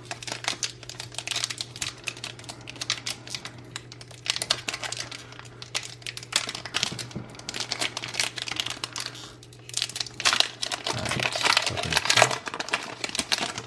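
Foil Pokémon booster pack wrapper being crinkled and torn open by hand: a dense crackling that grows louder and busier about ten seconds in.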